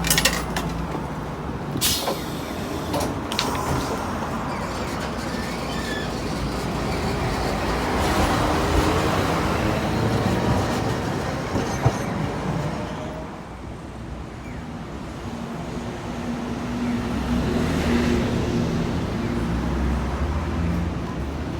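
Steady low rumble of a running vehicle, with a few sharp knocks.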